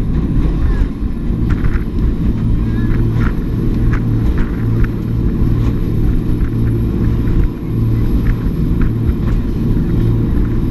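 Jet boat running under way: a loud, steady low engine drone.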